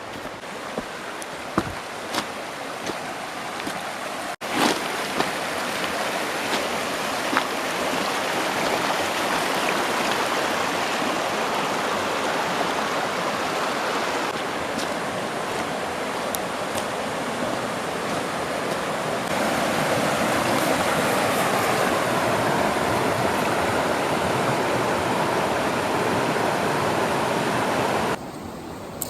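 Steady rushing of flowing water. The rush changes abruptly about four seconds in and again about two-thirds of the way through, and drops sharply just before the end.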